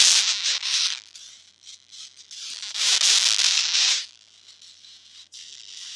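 Earphones plugged into an iPod touch 4th generation giving off loud crackling, hissing static in two bursts: one at the start lasting about a second, and another from about three to four seconds in, with a faint hiss in between. The owner takes it for a fault in the iPod's headphone jack, since the earphones work fine in other devices.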